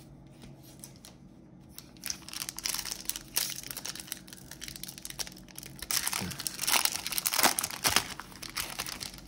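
Foil wrapper of a Topps baseball card pack being torn open and crinkled in irregular bursts, starting about two seconds in and loudest a couple of seconds before the end.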